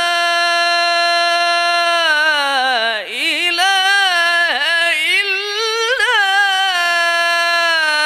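Male Quran reciter's voice through a microphone, holding one long, ornamented melodic note in the tajweed style. It has a few quick dips in pitch around the middle and steps down in pitch near the end.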